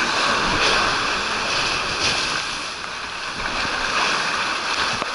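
Water rushing down a water slide under an inflatable ride tube, loud and dense, easing a little midway as the tube runs out into the pool with water splashing around it.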